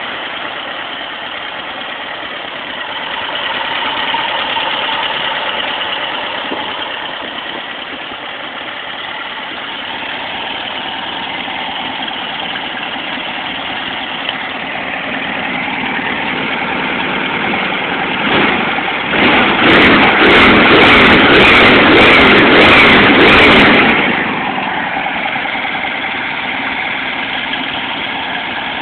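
Air-cooled VW flat-four, a 1776 cc MOFOCO build with dual Kadron carburettors and a Monza-style muffler, idling, then revved up hard about two-thirds of the way in, held high for about five seconds, and dropped back to idle.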